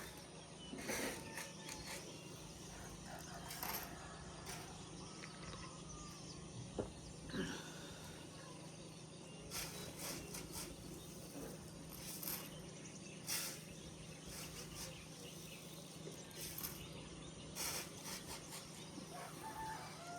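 Morning outdoor ambience of birds chirping here and there, with roosters crowing.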